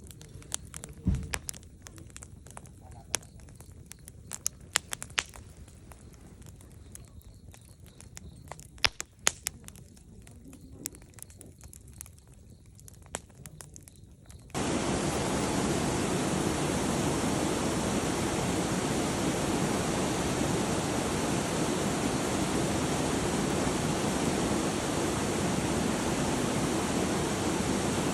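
Wood campfire crackling, with scattered sharp pops and snaps. About halfway through, a loud, steady rushing noise starts abruptly and drowns it out.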